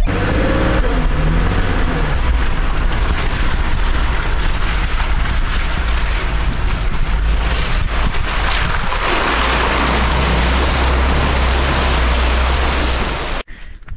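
Jeep driving through a water-filled stretch of trail, its engine running under a heavy, steady wash of splashing and spraying water. Cuts off suddenly near the end.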